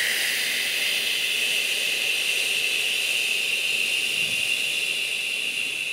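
A long, slow exhale through pursed lips straight into a close microphone: a steady hiss of about six seconds that starts sharply and fades away at the end. It is the eight-count out-breath of a 4-4-8 breathing exercise.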